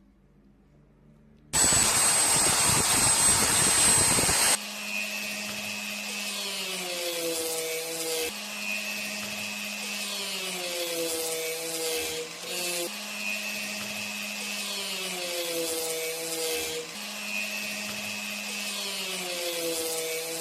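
A power tool working the steel of a cleaver blade. A loud, harsh burst with a steady high whine runs for about three seconds. Then a quieter run follows, its pitch dipping and recovering in regular strokes about every four seconds as the blade is pressed to the tool and eased off.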